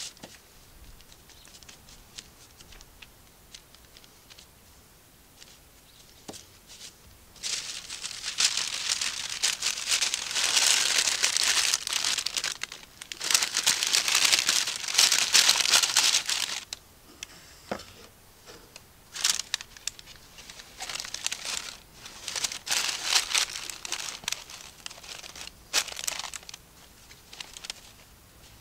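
Baking paper crinkling and rustling as it is gathered up around a ball of dough and pressed into a wooden bowl. It starts about seven seconds in with two long spells of loud crumpling, followed by shorter bursts of rustling.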